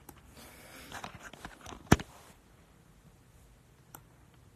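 A pause at a close microphone in a small room: soft noise for about two seconds, one sharp click about two seconds in, then quiet room tone with a faint click near the end.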